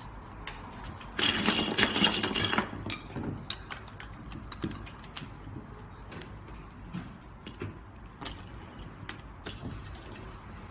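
Small plastic parts and pole sections clicking and knocking as they are handled at a workbench. A loud, dense mechanical rattle of rapid clicks lasts about a second and a half, starting about a second in, then scattered single clicks follow.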